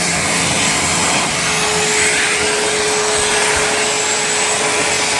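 Vacuum cleaner running steadily while hoovering a carpet, an even whooshing drone with a steady mid-pitched hum and a faint high whistle on top.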